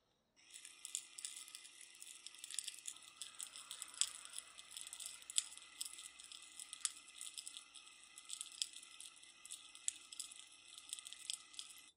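Makita cordless drill spinning a glass jar of gravel and small metal parts as a homemade tumbler, the stones and parts rattling and clicking against the glass, tumbling the rusty parts clean. It starts about half a second in, runs steadily, and cuts off suddenly near the end.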